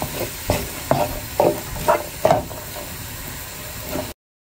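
Sliced onions sizzling as they fry in a frying pan, stirred with strokes that scrape the pan about twice a second. The sound cuts off suddenly shortly before the end.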